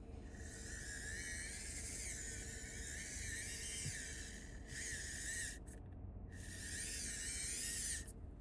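Mini RC truck's tiny electric motor and gears whining at a high pitch in three runs with short pauses, the first about four seconds long, the pitch wavering as the throttle changes.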